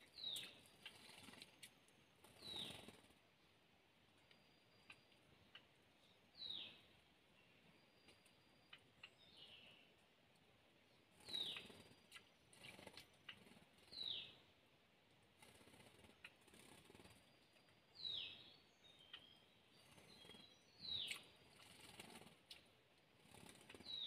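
A small bird repeats a short call that slides downward in pitch, eight times a few seconds apart, with a few faint clicks between the calls.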